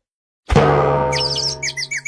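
Cartoon sound effect: a sudden bonk with a ringing, bell-like tone about half a second in, followed by rapid high-pitched tweeting chirps. This is the stock gag of a knock on the head with birds tweeting around it.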